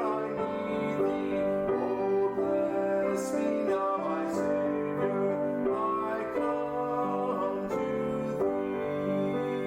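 Music with piano: held notes and chords changing every second or so.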